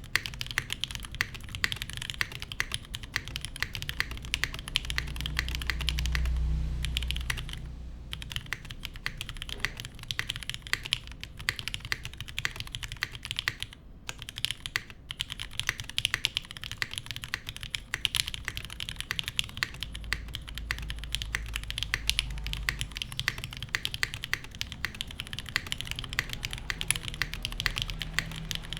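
Steady, fast typing on a gasket-mounted Geonworks F2-84 mechanical keyboard: lubed Cherry Nixie linear switches on an aluminium plate under GMK keycaps, a dense run of key clacks. A low rumble swells in under the typing twice, around five seconds in and again around twenty seconds in.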